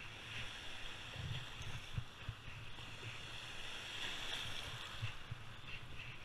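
Water rushing and splashing around a kayak's bow as it rides small waves, with a wave breaking in front of the bow about four seconds in. Wind buffets the microphone underneath.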